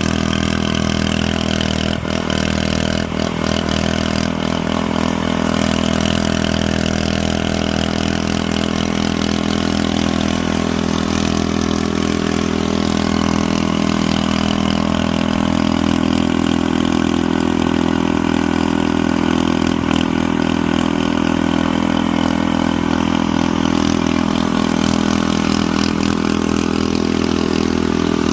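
A motor or engine running steadily, with an even hum that does not stop.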